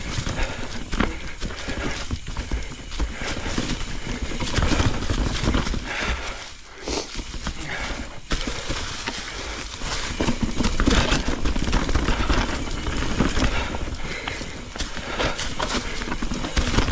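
Mountain bike riding down a rocky trail covered in dry leaves: tyres rolling over leaves and rock, with the bike rattling and knocking irregularly over the bumps. The racket briefly eases about six and a half seconds in.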